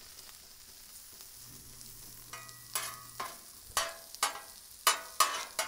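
Diced potatoes and onions sizzling on the steel top of a Blackstone griddle, with metal spatulas scraping and tapping on the griddle surface in a run of short strokes through the second half.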